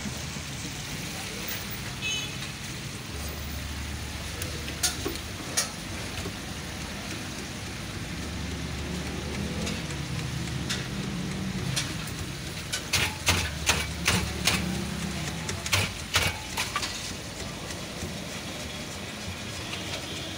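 Steady hiss and low hum of a busy roadside food stall, with a cluster of sharp clicks and taps from the counter partway through.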